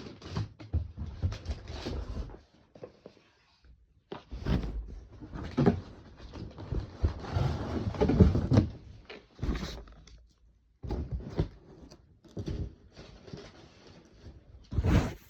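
Irregular rustling, scraping and knocking of packaging being handled and opened, in uneven bursts with brief pauses.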